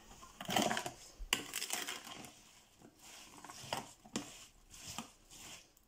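A spoon stirring chopped apple, pear and plum into cream in a plastic bowl: soft, irregular scrapes and clicks of the spoon against the bowl and the wet fruit pieces.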